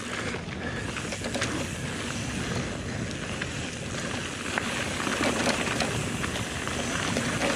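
Mountain bike descending a loose, rocky trail: tyres crunching over stones, with frequent sharp clicks and knocks as the bike rattles over the rocks.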